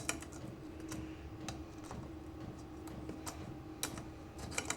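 Scattered light clicks and ticks of hand work on a lawn mower's oil fill tube as it is worked loose, over a faint steady hum.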